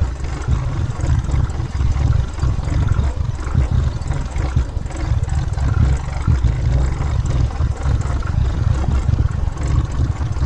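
Motorcycle riding downhill on a rough dirt track, heard through a camera on the bike: a loud, buffeting low rumble of wind and vibration on the microphone over the engine.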